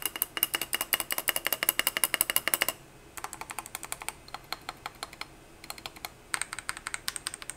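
Typing on the Tecware Phantom Elite+ mechanical keyboard. A fast run of keystroke clicks gives way, a little under three seconds in, to softer, sparser key presses, and a quicker burst of typing follows near the end.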